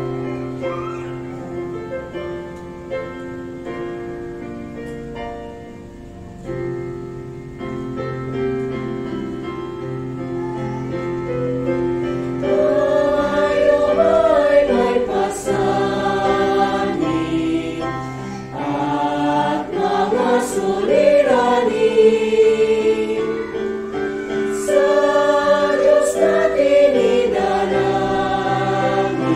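Church choir singing a Tagalog hymn. It is softer and held on sustained chords at first, then fuller and louder from about twelve seconds in.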